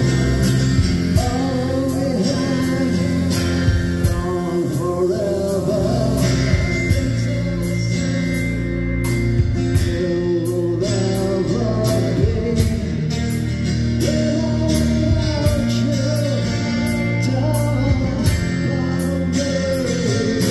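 Live rock band music: acoustic guitar and keyboards over a steady drum beat, played loud through a club PA.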